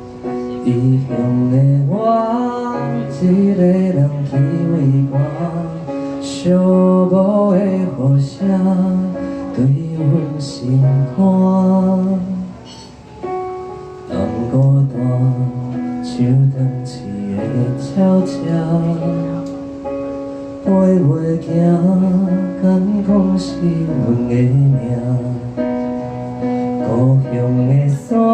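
A man singing a song into a microphone while accompanying himself on a Korg electronic keyboard, the vocal line rising and falling over sustained keyboard chords.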